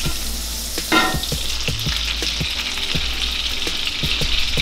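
Butter with minced garlic and parsley sizzling in a pan: a steady hiss with scattered crackles and a louder pop about a second in.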